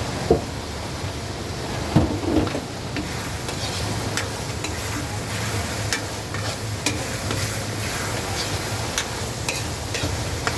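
Food sizzling in a pan while it is stirred with a metal utensil, which knocks and scrapes against the pan; a few louder knocks about two seconds in, then lighter clinks.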